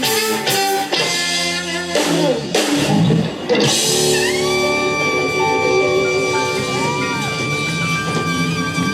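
Live band music with guitar and drums: choppy chords, then a long held note from about four seconds in.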